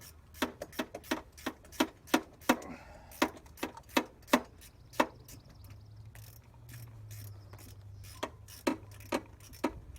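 Ratchet wrench clicking in short back-and-forth strokes as it loosens the nuts holding a turbo wastegate. The clicks come two to three a second, stop for a few seconds about halfway through, then start again near the end.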